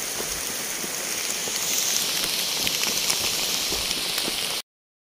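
Heavy rain falling: a steady hiss with the patter of close drops, swelling about a second and a half in and cutting off abruptly near the end.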